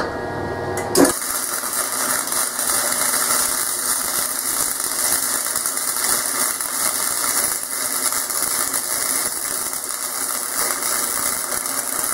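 Self-shielded flux-core wire-feed welder arc crackling and sizzling steadily as a bead is run on steel, starting with a sharp strike about a second in.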